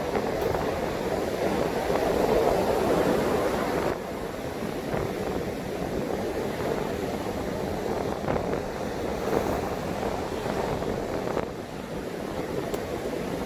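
High surf breaking on a sandy beach in strong wind: a continuous rush of waves that swells and eases, dipping briefly about four seconds in and again near the end.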